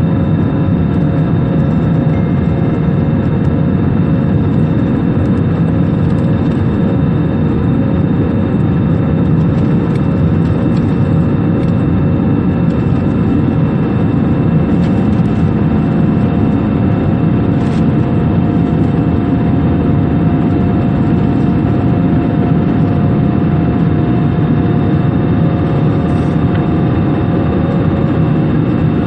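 Airliner jet engines running steadily during take-off: a loud, even rumble with several steady whining tones over it that hold their pitch throughout.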